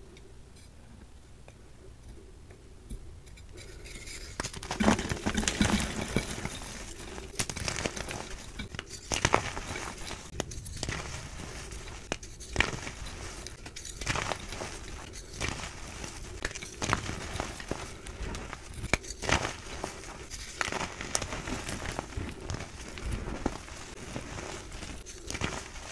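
Hands crushing reformed gym chalk rings and blocks into powder: a crumbly crunching and crackling that starts faint and picks up about four seconds in, with sharp cracks every second or two.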